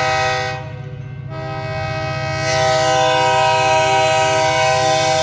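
Locomotive air horn sounding a loud, steady chord. It cuts out about half a second in, comes back about a second later and swells to full strength, with a low pulsing rumble underneath.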